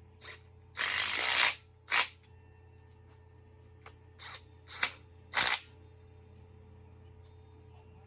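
Hand ratchet clicking in short runs as cylinder head bolts on a big-block Chevy are run down snug: one longer run of about a second near the start, then four brief ones.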